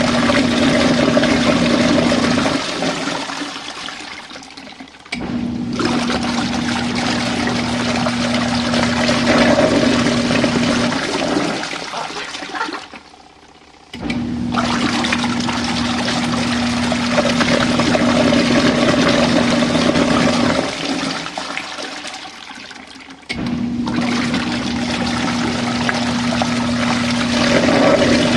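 Compact RV washing machine agitating rinse water: a motor hum with water churning and sloshing, which dies away and then starts again abruptly every nine seconds or so, three times. It is rinsing out leftover detergent suds.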